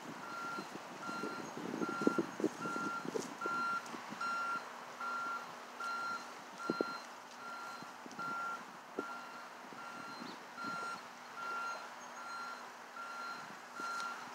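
A vehicle's reversing alarm beeping steadily, about one beep a second, with scattered rustling and a couple of short knocks.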